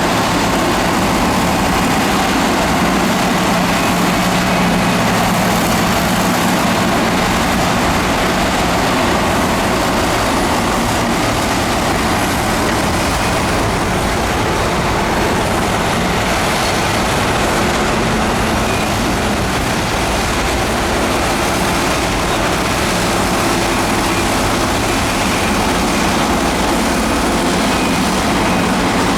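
Diesel engine of heavy earthmoving machinery running steadily, with a dense, even engine and machine noise.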